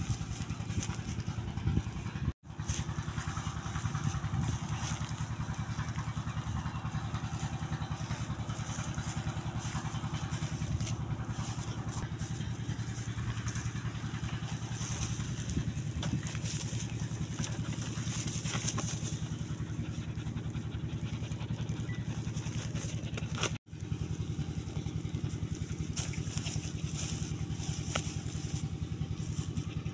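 An engine running steadily with a low, evenly pulsing drone, broken by two brief gaps, about two seconds in and near the end.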